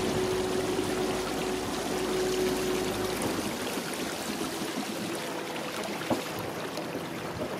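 River water rushing, an even hiss, with a faint steady hum in the first three seconds.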